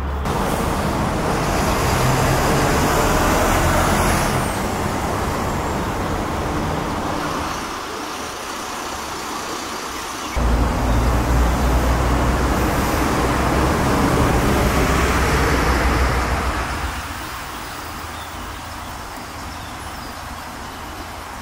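Road traffic noise: a steady low rumble with a hiss over it, stepping louder about ten seconds in and easing off again near the end.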